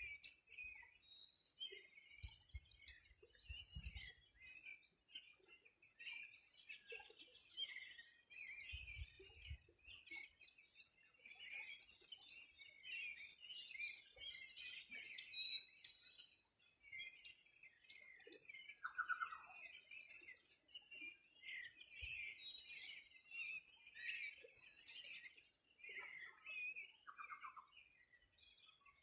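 Several songbirds chirping and singing at once, overlapping short calls and quick trills, one of them a falling trill. A few soft low thumps come through underneath.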